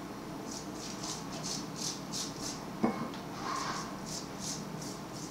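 Silicone pastry brush swishing across a sheet of phyllo dough, spreading melted butter in quick short strokes, about three a second. A single sharp tap a little under three seconds in.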